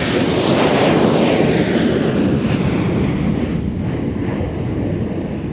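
Aircraft engines running loud as a plane passes close on its take-off run: a roar that peaks about a second in and then fades, its whine falling in pitch as it goes by.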